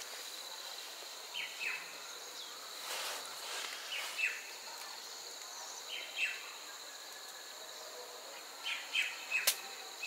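Insects droning steadily at a high pitch, with a bird giving short chirps in pairs every couple of seconds and a quick run of them near the end. A single sharp click sounds just before the end.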